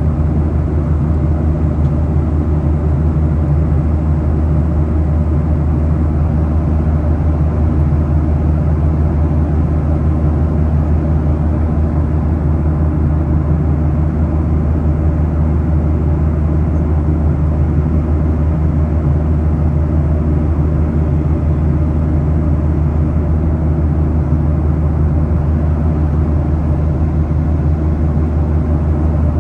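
Steady drone of a jet airliner's engines and rushing air heard inside the passenger cabin, strongest in the low range with several steady low hums.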